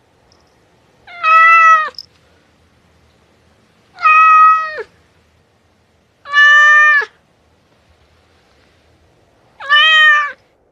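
A cat meowing four times, a couple of seconds apart, each meow short, holding one pitch and dropping at the end.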